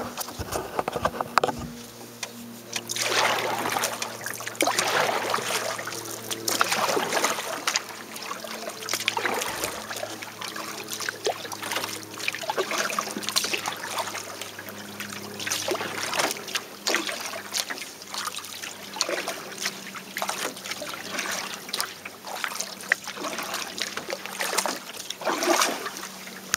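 Canoe paddle strokes in sea water: the blade splashes in, pulls through and drips, stroke after stroke, about every second or two.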